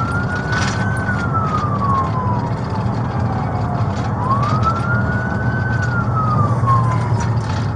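Police siren in a slow wail, rising and falling twice, over the steady rumble of a vehicle's engine and road noise.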